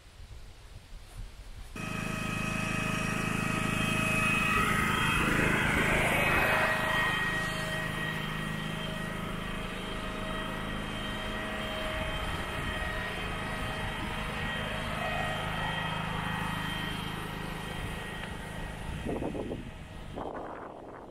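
A petrol generator and wood chipper running steadily: a low, even engine hum with several steady higher whining tones over it. It cuts in suddenly about two seconds in and dies away near the end.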